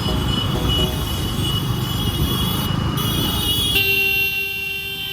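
Road traffic with a low rumble of engines and road noise, and a vehicle horn sounding for about a second and a half near the end.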